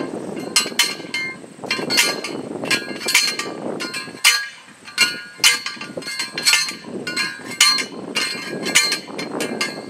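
Hand post driver hammering a steel T-post into the ground: a metallic clang about once a second, each ringing briefly.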